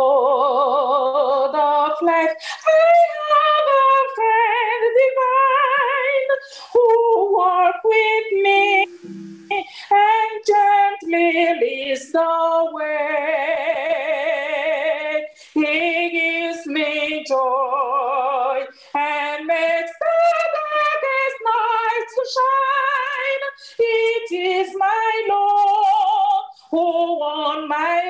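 A woman singing a gospel hymn solo, with a marked vibrato on held notes and short breaths between phrases, heard through a video-call connection.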